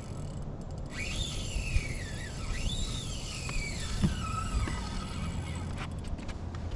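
Fishing reel drag whining as line is pulled off by a hooked fish, its pitch falling and rising again with the speed of the run, from about a second in until near the end, over a steady low rumble.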